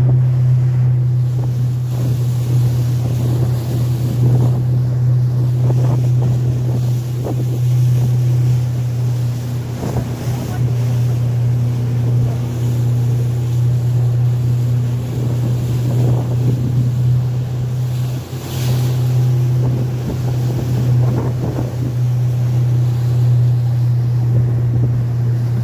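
Motorboat engine running at a steady low drone, with water rushing and splashing against the hull and wind buffeting the microphone.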